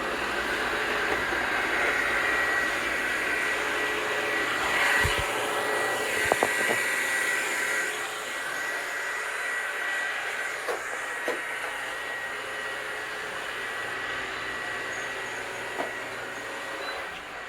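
Robot vacuum cleaners running: a steady motor and brush whir with a thin high whine, and a few short knocks.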